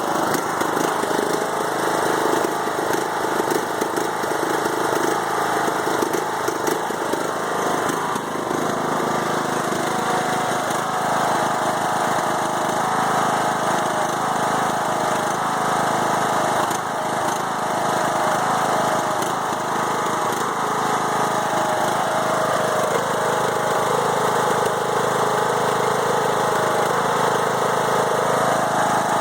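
Briggs & Stratton Intek 20 HP engine on a Craftsman riding mower idling roughly, its pitch wavering unevenly. This is the rough idle that set in after the head gasket was replaced following a hydrolock, and the engine also bogs under mowing load.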